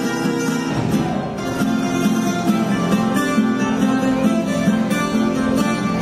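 Background music led by plucked acoustic guitar, with a steady rhythmic pulse.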